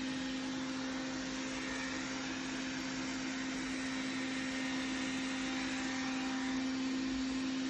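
Electric appliance motor running steadily: an even whir with one strong, steady humming pitch.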